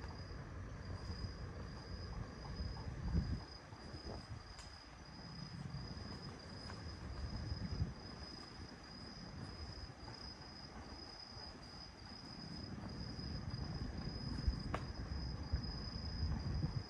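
A cricket chirping steadily: a high, thin chirp repeated evenly over and over, over a low background rumble, with a sharp click near the end.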